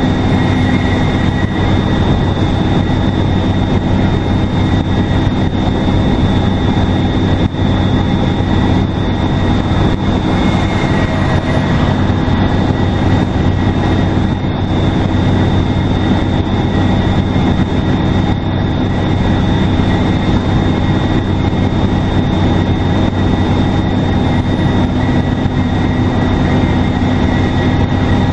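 2002 NABI 40LFW transit bus's Detroit Diesel Series 50 engine running steadily under load, a low drone with a steady high turbocharger whistle over it.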